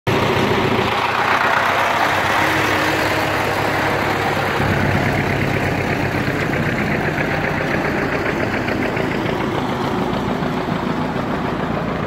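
Concrete mixer truck idling, its diesel engine giving a steady low running sound.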